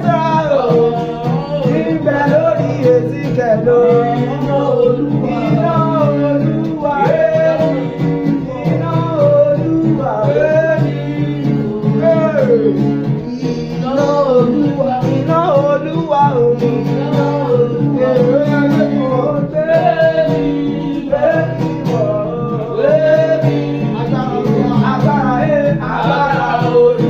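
Gospel music: singing over a steady guitar-led accompaniment.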